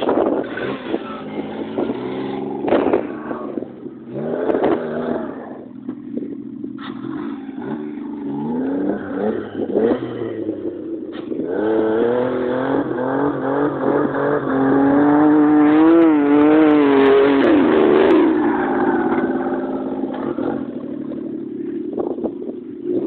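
The engine of a homemade Daewoo Tico-based off-road buggy, revving up and down as it is driven over rough, grassy ground, with a few sharp knocks early on. It gets loudest, revving hard with a wavering pitch, about two-thirds of the way through as it climbs close by.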